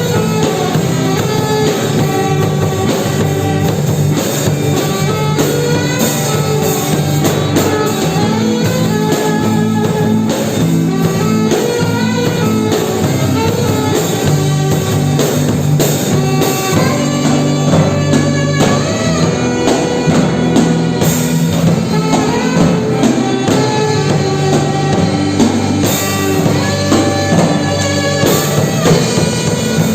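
A band playing instrumental music with guitar and drum kit at a steady beat.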